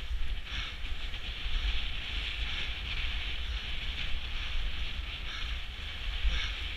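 Wind buffeting a moving skater's camera microphone, with a steady rolling hiss from inline-skate wheels on rough asphalt that swells briefly about once a second.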